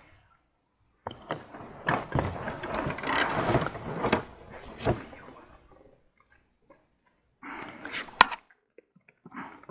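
Collapsible wire-mesh keepnet being handled: its metal rings and mesh rattle and clink. The clattering starts about a second in and fades after a few seconds, and a second short rattle ends in a sharp click near the end.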